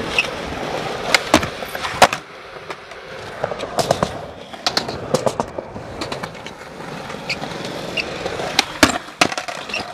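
Skateboard wheels rolling on smooth concrete, a continuous rough grind, with several sharp clacks and knocks from the board hitting the ground.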